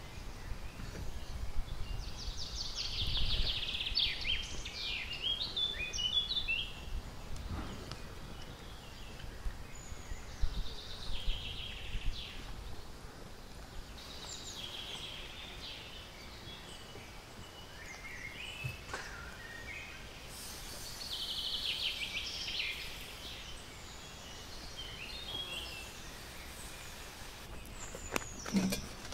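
Outdoor ambience: birds singing in short, high twittering phrases every few seconds over a steady background noise.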